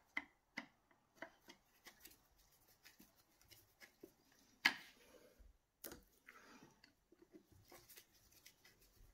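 Small metallic clicks and rattles of an electric chainsaw's chain and guide bar being handled while the chain tension is adjusted, with one louder click a little under five seconds in.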